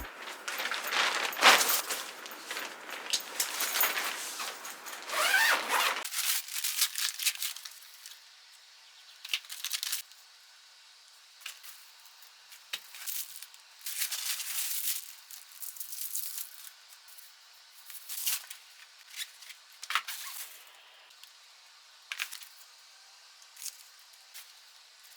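Irregular rustling, crinkling and small clicks of things being handled, dense for the first several seconds and then sparser with short quiet gaps.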